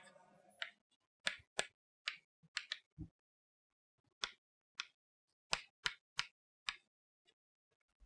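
Chalk striking and scratching on a blackboard in short strokes: about fifteen quick, irregular taps as lines and labels are drawn, with a pause of about a second just after three seconds in.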